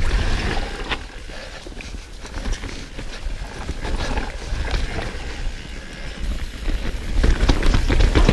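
Mountain bike ridden fast down a rough trail: tyres and frame clattering irregularly over rocks and roots, with wind rumbling on the helmet-camera microphone. It grows louder about seven seconds in.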